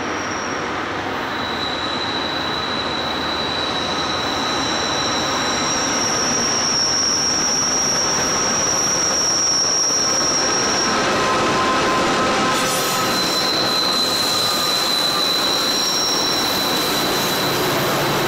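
Pacific National freight train passing close by behind NR-class diesel locomotives, the engines and wheels rumbling steadily. Over this, the wheel flanges squeal in long, high-pitched tones that come and go for several seconds at a time.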